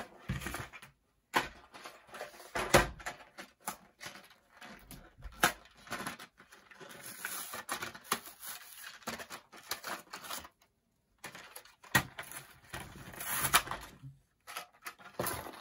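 Plastic blister packs of model railroad track being handled and pried open from their cardboard backing: irregular crinkling, crackling and clicks, with one loud click a little under three seconds in.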